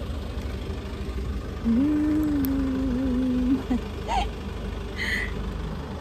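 Car engine idling with a steady low rumble. About two seconds in, a held humming tone lasts around two seconds, followed by a couple of short, higher voice sounds.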